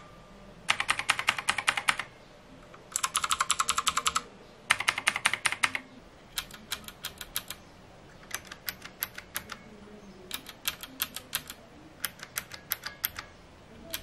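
Blue-switch mechanical keyboards being typed on in three quick bursts of rapid clicking. After that, single keys and a bare switch are pressed one at a time, two or three sharp clicks a second.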